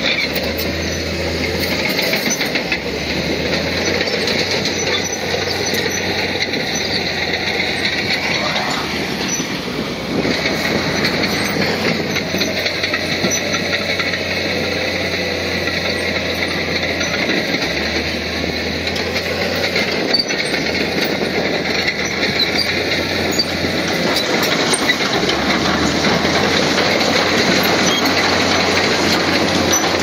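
Crawler bulldozer working: its diesel engine runs steadily under load amid the metallic rattle of its steel tracks, a loud continuous din.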